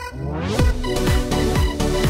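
Electronic dance music: a sweeping build-up gives way, about half a second in, to a steady heavy kick-drum beat of about two beats a second.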